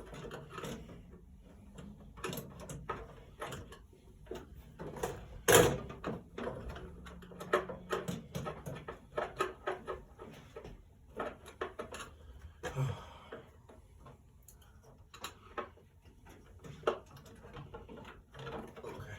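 Irregular knocks, clicks and scrapes of hands working at an air vent, with one louder knock about five and a half seconds in.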